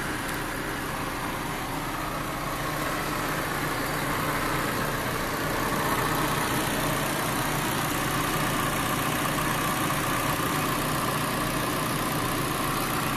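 Nissan car engine idling steadily under the open bonnet, heard close up; it gets a little louder about four seconds in.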